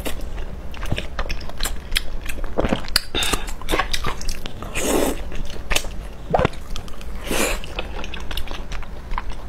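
A person chewing and biting food close to the microphone, with wet mouth clicks and smacks: eating braised pork belly with chili. A few louder, longer smacks come about halfway through and again near the end.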